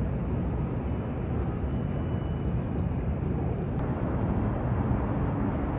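Steady low rumbling outdoor noise with no clear pitch, the even background of an open-air recording.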